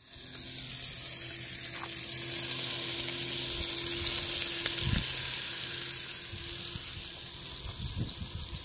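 Beef patty and sliced potatoes sizzling in frying pans on a gas stove, a steady hiss that eases off after about six seconds.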